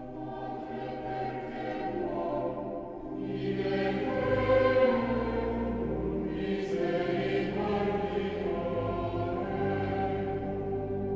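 A choir singing slow, sustained chords, swelling louder twice near the middle.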